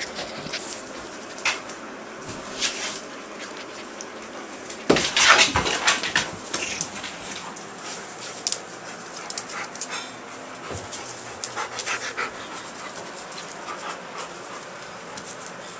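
Eight-week-old Alaskan malamute puppies at play: panting and scuffling, with short sharp sounds scattered throughout and the loudest burst about five seconds in.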